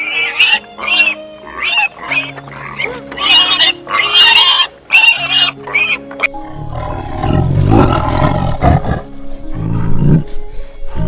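Animal calls over background music: short, high, repeated calls about once a second, then louder, deeper, rough calls from about six and a half seconds in.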